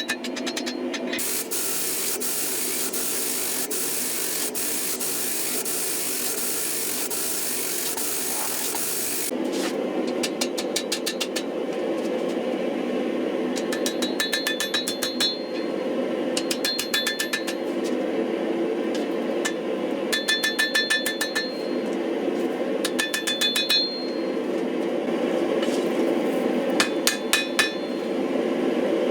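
A loud steady hiss for the first nine seconds or so, then a hammer striking hot steel on an anvil in short bursts of quick blows, each burst with a bright ring, over a steady hum: forging out a layered Damascus billet.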